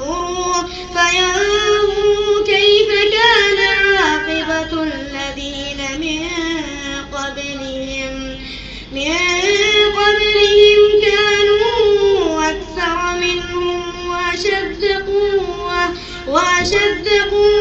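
Melodic Quran recitation: a single high-pitched voice chanting in long, drawn-out notes that glide and bend in ornamented phrases, pausing briefly about nine seconds in and again near the end.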